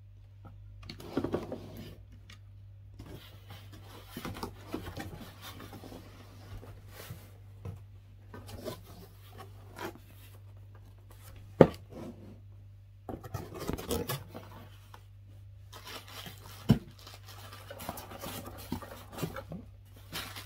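Packaging being handled during a printer unboxing: irregular rustling, scraping and rubbing, with two sharp knocks, one just past halfway and one later, over a low steady hum.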